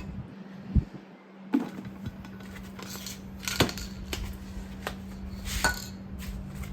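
A few sharp clicks and knocks, about five spread over several seconds, from objects being handled and set down, over a steady low hum.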